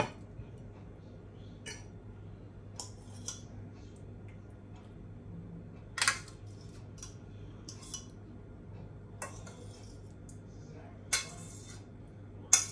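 Metal utensil scraping and clinking against a stainless steel saucepan and plates as curry sauce is scooped out, in scattered short scrapes and taps; the loudest comes about six seconds in and a longer scrape about eleven seconds in. A low steady hum runs underneath.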